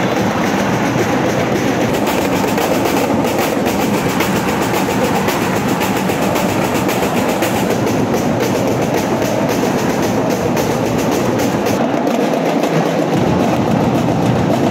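Large crowd of basketball supporters cheering in an indoor gym: a loud, steady roar with scattered claps or beats in it.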